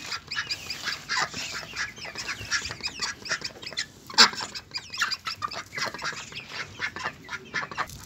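Mixed flock of ducks and hens calling as they crowd around waiting to be fed: many short, overlapping calls, with one louder call about four seconds in.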